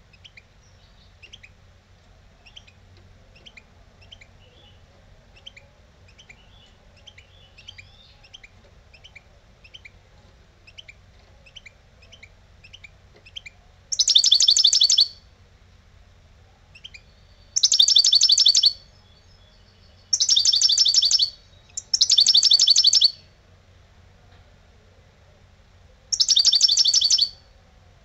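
European goldfinch singing. It starts with soft, scattered twittering notes, then about halfway through breaks into five loud, rapid, trilled phrases, each about a second long and a few seconds apart.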